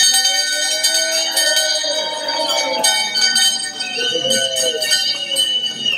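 A dealership bell rung by hand over and over, its ringing tones sustained throughout, with people shouting and cheering over it. It is rung to celebrate a customer's new motorcycle purchase.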